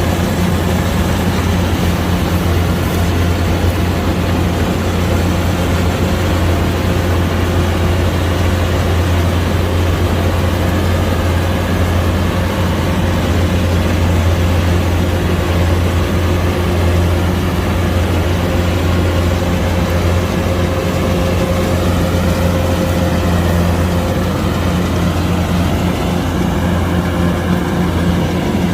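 Kubota DC105X combine harvester's diesel engine and machinery running steadily as it works, a constant low drone with no change in pace.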